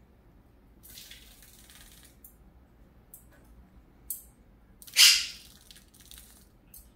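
Guianan toucanet bathing in a stainless steel water bowl: a series of short splashes, the loudest about five seconds in.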